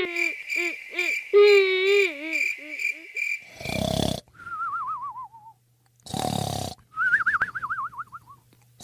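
The cartoon banana cat's wavering, wailing cry for about the first three seconds, over a steady high tone. Then cartoon snoring: a short rasping snore followed by a wobbling whistle on the out-breath that drifts down in pitch, heard twice.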